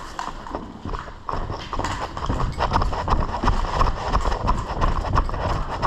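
Fast footsteps of a player on the move, about three steps a second, picking up about a second in.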